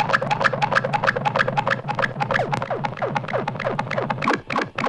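Electronic dub music playing from a vinyl record: a fast, even run of clicks with short synth tones that swoop down in pitch, over a bass pulse. About four seconds in the bass drops out, leaving the clicks echoing on their own.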